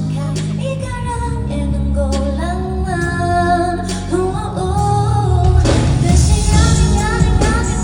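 A woman singing a pop song over backing music. The backing grows fuller and louder about two-thirds of the way in.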